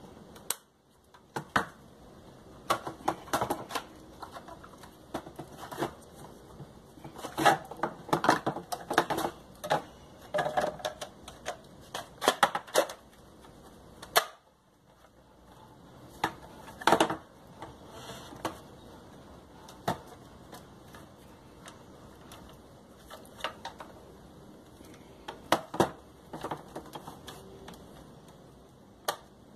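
Irregular plastic clicks, knocks and rattles as the housing of a Lorenzetti Acqua Ultra electronic shower is handled and its parts fitted back together.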